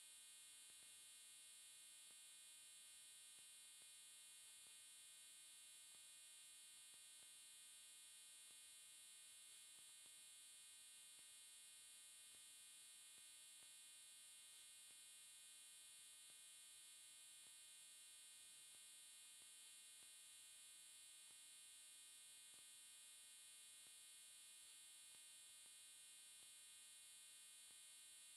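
Near silence: only a faint, steady hum and hiss with no other sound.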